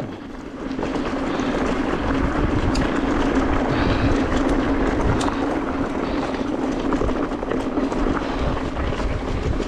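Electric mountain bike ridden along a gravel forest track: tyres rolling and crunching over the gravel with wind buffeting the microphone, a steady hum, and occasional small clicks and rattles.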